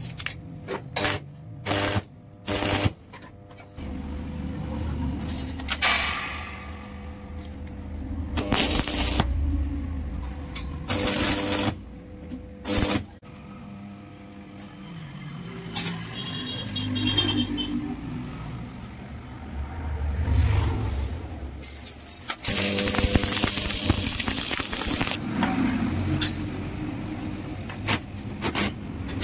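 Steel angle and tube being handled on a workshop floor: scattered sharp metal knocks and clanks, with stretches of scraping noise.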